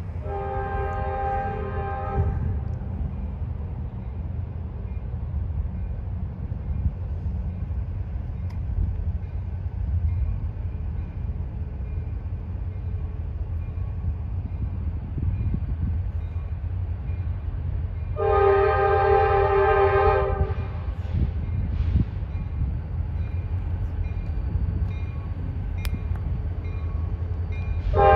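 Diesel freight locomotive's air horn sounding a chord of several tones as it approaches a grade crossing: two long blasts about 16 seconds apart, with a third starting at the very end. A steady low rumble runs underneath.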